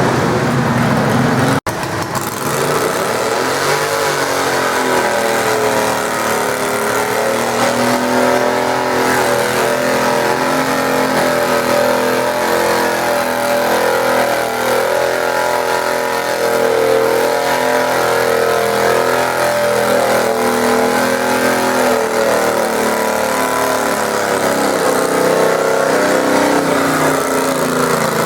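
Garden tractor engine running hard under load as it pulls a weight sled, its pitch wavering for a few seconds and then holding fairly steady. The sound cuts out for an instant near the start.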